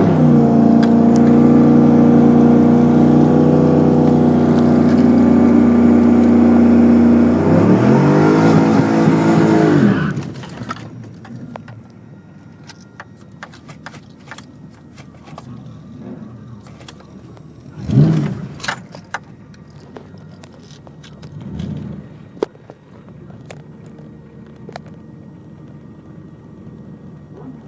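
Car engine held at high, steady revs; about eight seconds in its pitch drops and climbs back up, and about ten seconds in the engine sound cuts off abruptly. What remains is much quieter, with scattered clicks and a couple of louder knocks.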